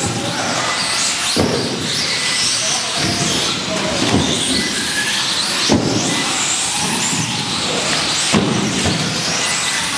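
Several 1:18-scale electric RC cars racing on an indoor track. The high-pitched whine of their motors rises and falls over a steady noise of wheels on the track, echoing in the hall. Sharp knocks come every second or two as the cars land and hit the track.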